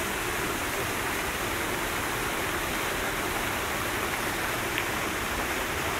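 Water fountain jet splashing into a pool: a steady rush of falling, splashing water.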